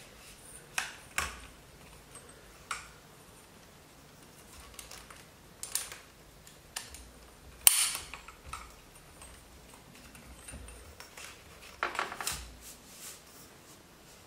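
Sections of ViperFlex shooting sticks clicking and knocking together and against the counter as they are handled and lined up. There are scattered sharp clicks and taps, the loudest about eight seconds in, and a cluster of them near twelve seconds.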